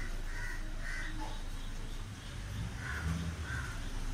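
A bird calling: a quick run of short calls in the first second, then a few more about three seconds in.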